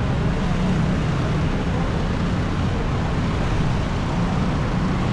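Steady street traffic noise with a low, even engine hum.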